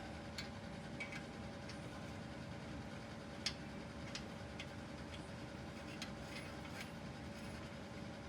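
Scattered light metallic clicks and taps from hand tools working on the steering knuckle and ball-joint nuts of a Dana 60 front axle, spaced irregularly, the strongest about three and a half seconds in, over a steady background hum.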